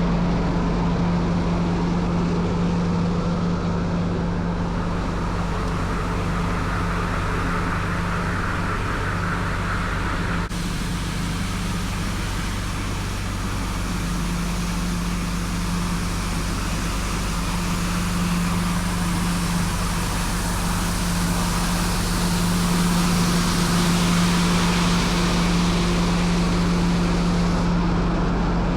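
Tymco 435 street sweeper running with a steady drone. About ten seconds in the sound changes suddenly, and a hiss grows louder later on.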